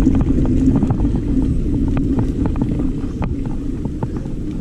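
Mountain bike rolling over a rough dirt trail: wind buffeting the microphone over a steady low rumble of tyres on the ground, with many small clicks and rattles from the bike.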